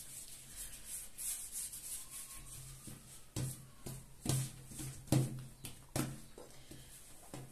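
Hands rubbing and smoothing a thin sheet of oiled dough on a countertop, with several soft pats about half a second to a second apart, over a faint steady low hum.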